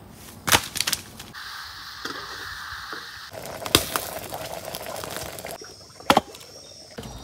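Outdoor cooking sounds cut together: a wood fire hissing and crackling, and sharp knocks, the last a knife chopping food on a banana leaf. The background changes abruptly several times.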